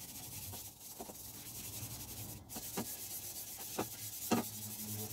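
A dry Scotch-Brite pad rubbed by hand over a vapor-blasted steel two-stroke expansion chamber (an FMF Fatty pipe), all strokes in one direction: a steady scratchy rubbing with a few short, louder strokes. It is clearing light surface rust off the pipe and leaving a brushed finish.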